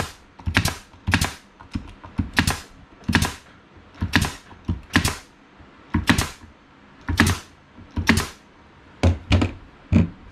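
Bostitch pneumatic nail gun firing nails into wooden boards in a quick series of sharp shots, about one or two a second.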